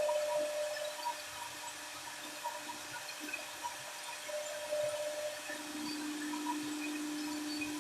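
Large CNC router's spindle running as it machines solid wood: a steady hiss with faint humming tones that come and go, the lower hum growing stronger about two-thirds of the way through.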